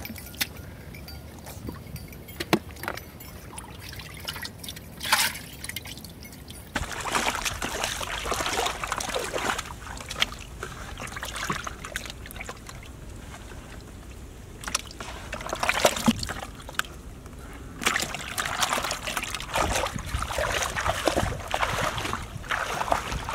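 Water splashing and sloshing in irregular bursts, from hands working in a flooded mud trap hole and in a bucket of water holding snakehead fish. In the last few seconds, legs wade through shallow pond water.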